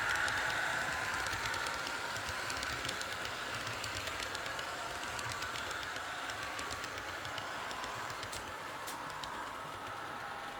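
H0-scale model train running on the layout's track, its wheels clicking over the rail joints with a thin motor whine. It grows steadily fainter as it moves away.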